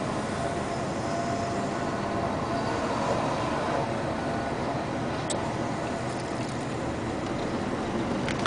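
Steady din of stone-crushing plant machinery: a continuous mechanical rumble with a faint steady whine. A light click comes about five seconds in and another near the end.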